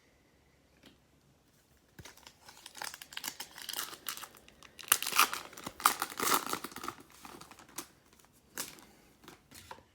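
Foil trading-card pack wrapper being torn open and crinkled by hand, a dense crackling run of a few seconds with a few last crinkles near the end.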